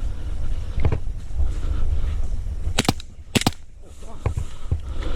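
Two sharp airsoft gun shots, about half a second apart a little past halfway, over a steady low rumble of wind and rustling movement.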